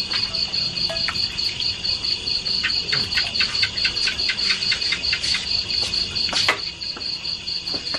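Crickets chirping steadily in a fast, even pulse. A run of light clicks comes through in the middle.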